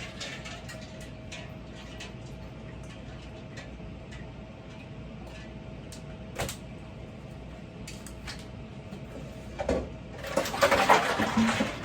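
Kitchen handling noises over a steady faint hum: scattered light clicks, a sharp click about six seconds in, a knock, then a louder stretch of rustling and clatter near the end, as a brined pork shoulder is handled and dried.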